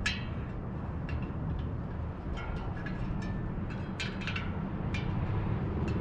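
Light metallic clicks and clinks, some with a brief ring, coming irregularly about ten times as a bicycle spoke is worked into the rear wheel's rim and ticks against the other spokes. A steady low hum runs underneath.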